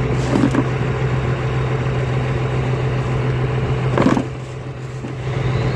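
An engine runs steadily with a low, even hum, with a short knock about four seconds in, after which it is briefly a little quieter.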